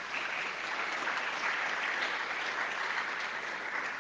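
Audience applause at the end of a talk: steady clapping from a seated crowd in a hall, which begins just before and dies away shortly after.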